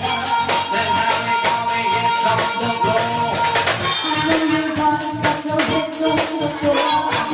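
Live band playing an up-tempo dance medley: electronic keyboards over a steady beat, with a lower held note coming in about four seconds in.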